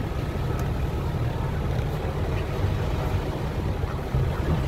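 Mercedes-Benz trial truck's diesel engine running steadily at low revs as the multi-axle truck crawls over a rutted dirt slope: a deep, even rumble.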